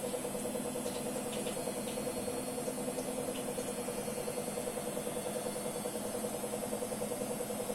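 Arçelik front-loading washing machine on its spin cycle: motor and drum running at steady speed with a steady hum and a fast, even pulsing, and a few faint ticks about a second in.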